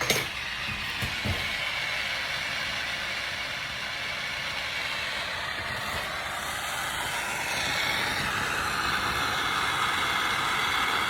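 Jeweler's soldering torch with a #1 tip burning with a steady hiss, getting slightly louder a few seconds before the end. The flame is heating a 22k gold piece from underneath on a tripod to make the solder flow around a bezel.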